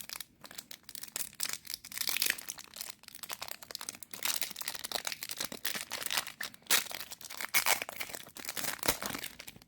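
Foil trading card booster pack being torn open and its wrapper crinkled, in many irregular crackles.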